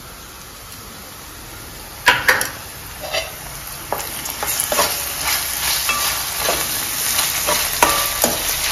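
Steel spoon stirring and scraping onions, green chillies and ginger-garlic paste in a non-stick pan, the mix sizzling in hot oil. A low hiss at first, a sharp clatter of the spoon against the pan about two seconds in, then the sizzle grows louder under repeated scrapes.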